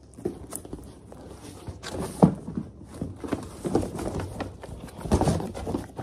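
Cardboard box being opened and handled: flaps and tape rustling and scraping, with irregular knocks, the sharpest about two seconds in.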